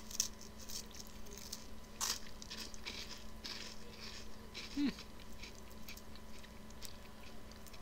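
Faint crunching and chewing of crisp, cream-filled wafer sticks being bitten, with light crackles throughout and a sharper crunch about two seconds in.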